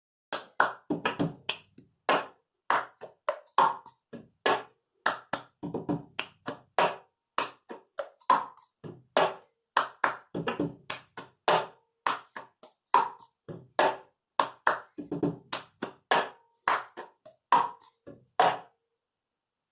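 Cup game rhythm with no singing: hand claps and a cup tapped and set down on a table in a repeating pattern, about two sharp strikes a second with some quick doubles.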